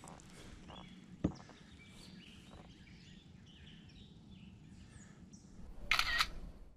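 Quiet outdoor lake ambience with faint bird chirps, a single sharp click about a second in, and a short, louder burst of noise near the end before the sound cuts off suddenly.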